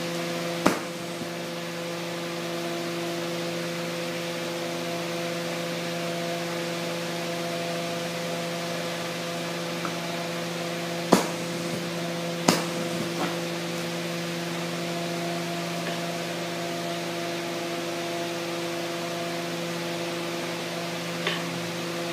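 Steady hissing with a low, even hum from the running equipment of a glassblowing shop. Three sharp clicks come through: about a second in, and twice more about a second and a half apart near the middle.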